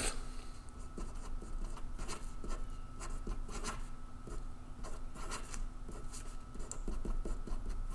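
Sharpie marker writing on paper: a run of short, quick scratchy strokes as letters and small circles are drawn.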